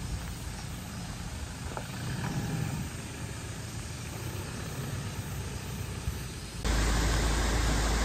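Toyota Land Cruiser Prado driving slowly away over a gravel track, its engine and tyres running low and steady. About seven seconds in it cuts off abruptly to the louder, steady rush of a waterfall.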